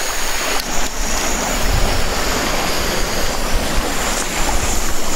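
Jetboil canister stove burner lit and running: a steady hiss of burning gas with a faint high whistle. Wind buffets the microphone.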